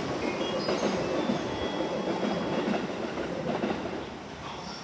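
Keihin-Tohoku line E233-series electric train running along the track, its wheels rumbling and clattering over the rails, the sound fading steadily as it pulls away.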